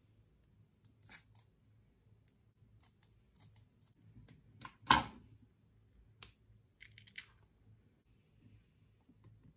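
Scissors snipping through the rubbery skin of a bead-filled stress ball in a series of short sharp clicks, the loudest about five seconds in, as gel water beads spill out into a glass bowl.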